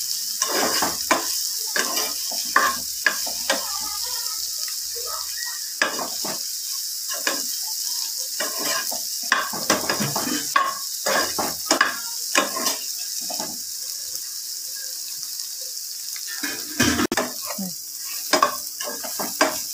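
Boiled potato cubes frying and sizzling in oil in a nonstick frying pan, stirred with a spoon that scrapes and knocks against the pan at irregular moments.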